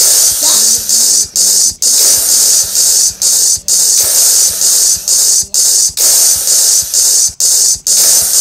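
Loud static-like hissing from an animation's sound track playing through a tablet speaker. The hiss is broken by short gaps about twice a second, and a faint steady low hum sits under it.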